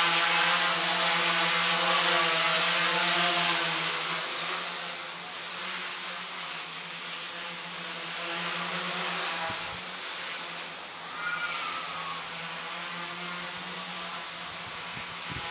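Three DT750 brushless motors spinning 10x4.7 props on a large tricopter, buzzing in flight with a wavering pitch as the throttle changes. Loud at first, then fainter from about four seconds in as it flies off and climbs.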